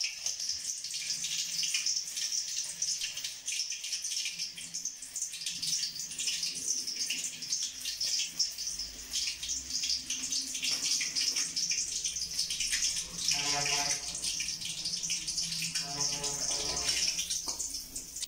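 Hot cooking oil sizzling in a pan, a steady hiss with fine crackles throughout.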